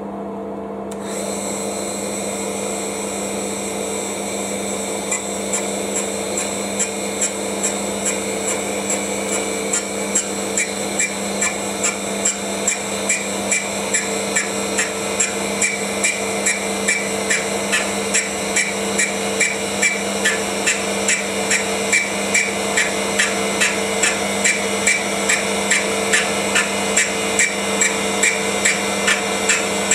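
Tool post grinder's electric motor and small grinding wheel running with a steady hum while grinding the inside of hardened three-jaw lathe chuck jaws. From about five seconds in, a regular ticking of about two a second grows stronger: the interrupted cut, as the wheel meets each jaw in turn on the turning chuck.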